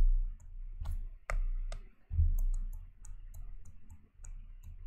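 Stylus clicking and tapping on a tablet while writing small numbers by hand: a few sharp clicks, then a run of faint light ticks. Two or three dull low thumps come through, the loudest a little after two seconds in.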